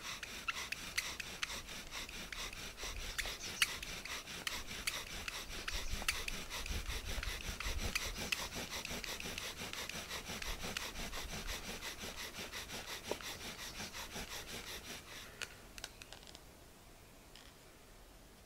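Bow drill at work: a hazel spindle spun fast and under heavy pressure in a spruce hearthboard, giving a continuous wood-on-wood friction noise with each stroke of the bow, which heats the dust pile to make an ember. The drilling stops about three seconds before the end.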